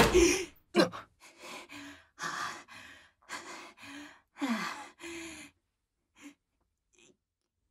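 A man breathing hard: a run of short, breathy gasps and huffs, a few carrying a little voice, that stops about five and a half seconds in.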